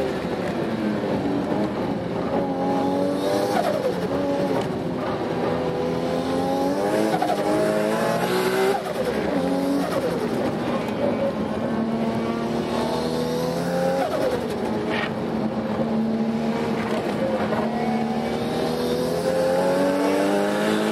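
Toyota Altezza with a swapped-in Nissan RB26 2.6-litre twin-cam straight-six and a single T04Z turbo, heard from inside the cabin under hard track driving. The revs climb and fall repeatedly as it accelerates, shifts and lifts for corners, with a sharp drop about nine seconds in.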